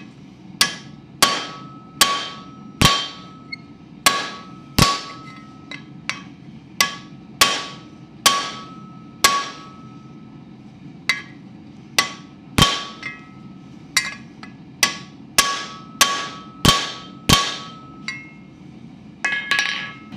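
Hand hammer striking a hot iron rivet to set and round its head, joining the two halves of a pair of blacksmith's tongs. It is a long run of steel-on-steel blows, about one to two a second, each one ringing, with short pauses near the middle and near the end.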